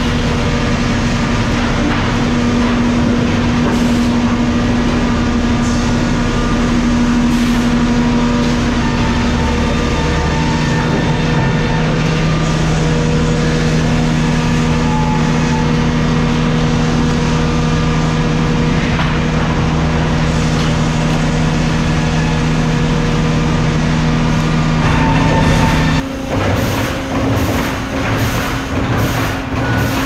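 Loud, steady din of sawmill machinery running: powered roller conveyors and their motors, with a steady hum. About 26 s in the sound changes abruptly to an uneven clatter with short sharp hisses.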